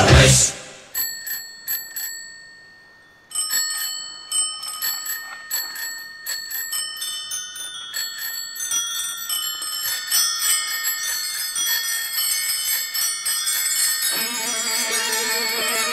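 Bicycle bells ringing as the bell interlude of a rock song: a few single rings at first, then more and more bells ringing over each other in different pitches. A guitar comes in near the end.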